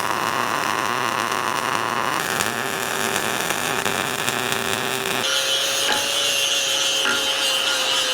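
Angle grinder grinding down steel welds, a steady whine over harsh grinding noise, its pitch jumping abruptly about two and five seconds in.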